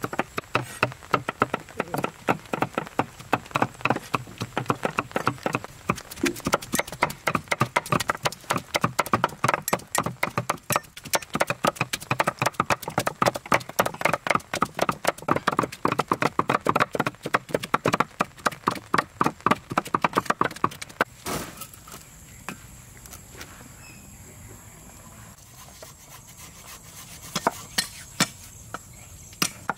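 Cleavers chopping red bell peppers on a wooden stump chopping board, fast irregular knocks of blade through pepper onto wood. The chopping stops about two-thirds of the way in, leaving a quieter stretch with a few single knocks, and starts again just before the end.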